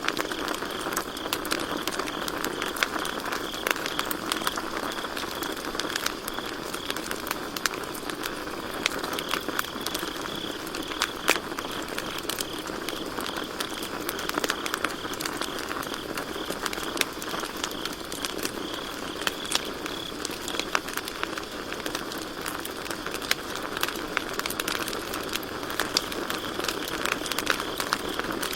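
Campfire crackling and popping with frequent sharp snaps over a steady hiss of burning wood, with crickets chirping steadily and faintly in the background.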